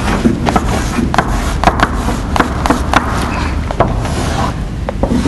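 Chalk writing on a blackboard: repeated scraping strokes with many sharp taps as the chalk meets the board.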